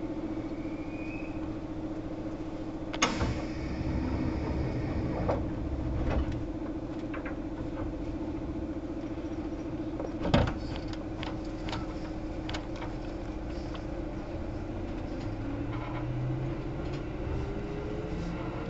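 Kintetsu 1810-series commuter train heard from inside the car: a steady hum while it stands, broken by a sharp clunk about three seconds in and a louder one about ten seconds in. Near the end the traction motors start up with a whine that rises in pitch as the train pulls away.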